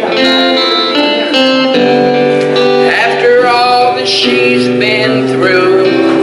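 Gospel music: a man singing into a microphone with guitar accompaniment.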